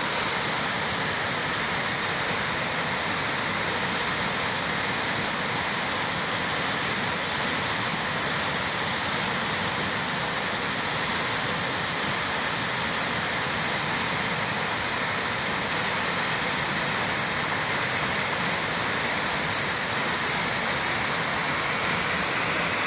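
Waterfall pouring, a constant, even rush of falling water.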